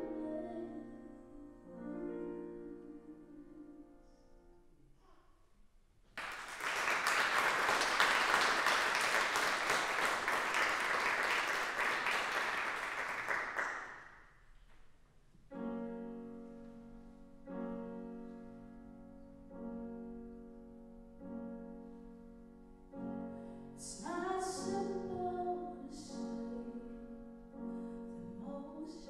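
A song's last grand piano notes die away, then the audience applauds for about eight seconds. After it the piano begins a new piece with evenly repeated chords, and a woman's singing voice comes in over them near the end.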